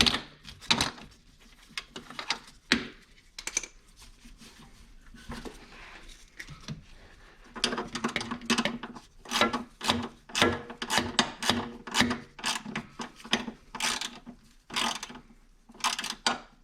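Hand ratchet wrench driving in and tightening a snowmobile skid-frame mounting bolt: a few separate clicks and knocks at first, then from about halfway a fast, even run of ratcheting strokes, about three a second.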